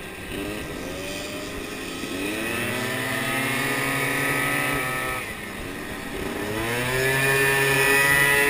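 Small moped scooter engine revving up as it accelerates and holding a steady high pitch, easing off briefly about five seconds in, then climbing again to a higher steady pitch.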